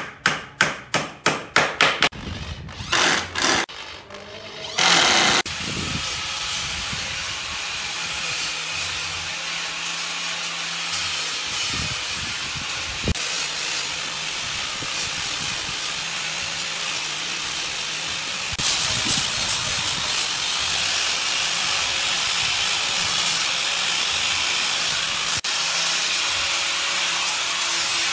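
A hammer tapping rapidly on wood, about four blows a second, for the first two seconds. Then an angle grinder with a sanding disc runs steadily, sanding pallet-wood boards, growing louder and harsher about two-thirds in as the disc bears harder on the wood.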